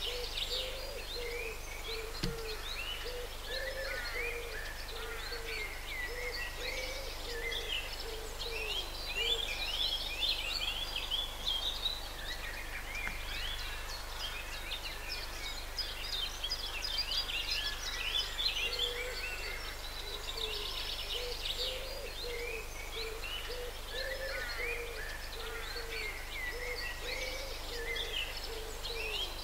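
Dawn chorus of many songbirds: overlapping high chirps and trills throughout, with a lower cooing call repeated about twice a second through much of it.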